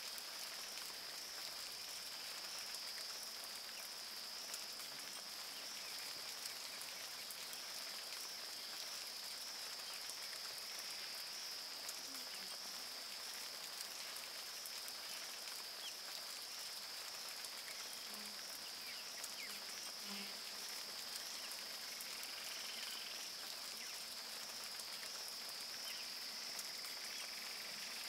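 Rainforest ambience: a steady, high-pitched insect drone over the light patter of rain, with a few faint, brief calls here and there.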